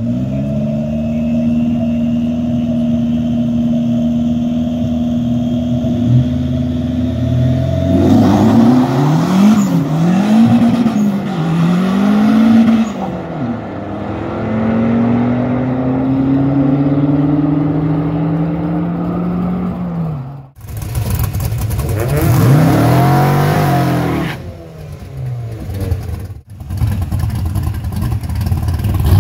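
Drag race car engine holding a steady pitch, then revving up and down several times as it launches and pulls away. The sound breaks off abruptly twice near the end and picks up again with more revving.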